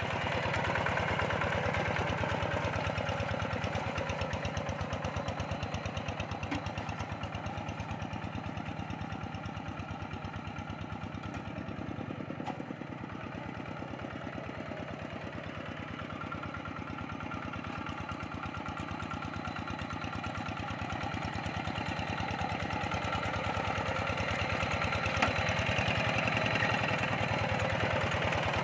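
Quick G1000 two-wheel hand tractor's single-cylinder diesel engine running steadily under load as it pulls a moldboard plough through a flooded paddy. It grows fainter in the middle as the tractor moves away and louder again near the end as it comes back.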